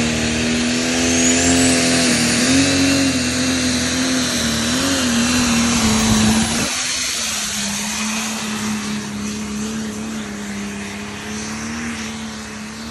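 Pro stock diesel pulling tractor running flat out as it drags the sled, a loud, high steady engine note whose pitch wavers, with a high whistle rising over the first two seconds. About seven seconds in the sound drops suddenly to a thinner, quieter, more distant engine note that holds steady.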